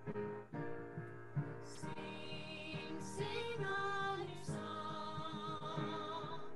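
Piano playing, then a woman and a girl begin singing a hymn together about two seconds in, with the piano going on beneath their voices.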